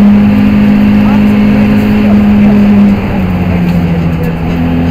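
Four-cylinder engine of a BMW E36 318is rally car under load at high revs, heard from inside the cabin. About three seconds in the revs drop a step and the engine runs on steadily at the lower pitch.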